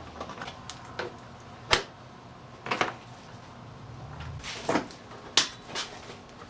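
Hard plastic side panel of a Suzuki DRZ-125L dirt bike being unscrewed and pulled off the frame: a handful of sharp plastic clacks and knocks, spaced irregularly.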